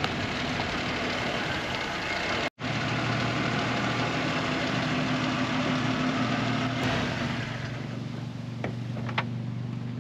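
1966 AMC Marlin's engine idling steadily with the car stopped, after a stretch of rushing noise as it rolls in. Near the end come two sharp clicks as the driver's door is unlatched and opened.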